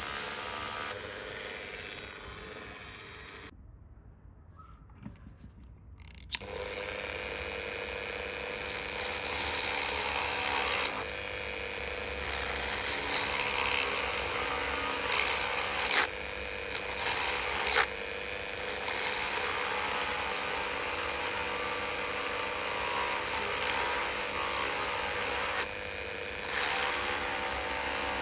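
Dremel rotary tool with a diamond drill bit running steadily as it drills holes through abalone shell, with a steady motor whine and grinding noise. It stops briefly a few seconds in, and two sharp clicks come in the middle.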